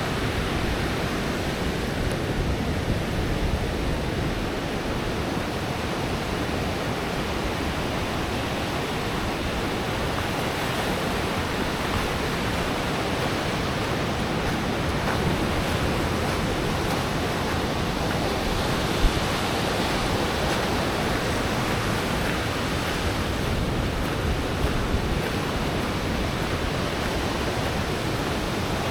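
Pacific surf breaking on a sandy beach: a steady wash of waves. There is one brief knock about 19 seconds in.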